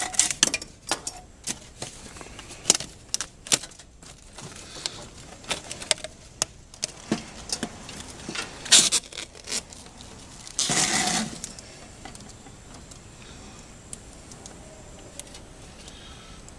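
Flexible metal duct hose being worked onto a sheet-metal collar, making scattered light metallic clicks, rattles and crinkles. About two-thirds of the way in there is one louder scrape lasting under a second.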